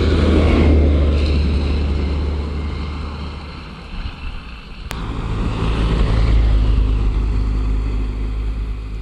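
UAZ van driving past close by on a snowy road, its engine and tyres loud at first, then fading as it goes. About five seconds in, a second car passes and pulls away, swelling and then fading.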